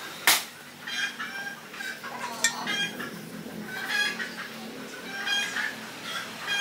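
Chickens clucking: short calls repeating several times a second, with a sharp click about a third of a second in.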